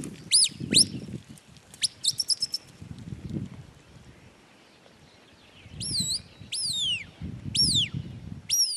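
A run of high, clear whistled notes: two quick rising-and-falling sweeps, a rapid trill, then after a pause four falling sweeps about a second apart. Gusts of wind rumble on the microphone in between.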